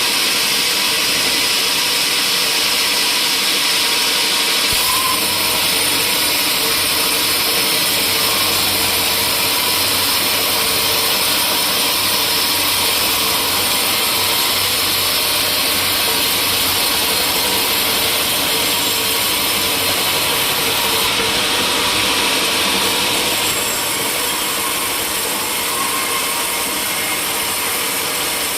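Sawmill saw running steadily and cutting through timber: a loud, continuous whine and hiss. A low hum joins about five seconds in, and the sound eases slightly near the end.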